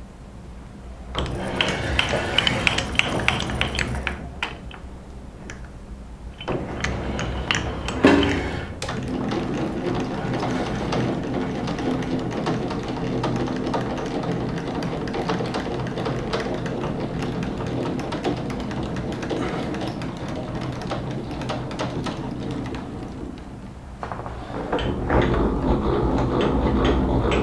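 Benchtop machine tool running as it works steel, a steady motor hum under a fast, even rattle of cutting. Louder passages of cutting come about a second in and again near the end.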